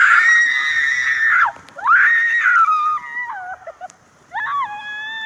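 People screaming on a water slide ride: three long, high screams, the second dropping in pitch at its end, the third lower and held steady.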